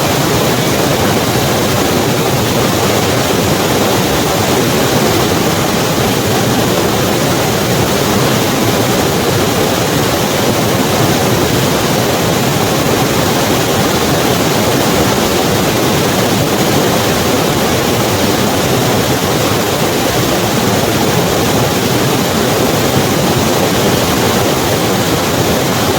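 Snow-melt river rushing over rocks: a loud, steady roar of running water with no change throughout.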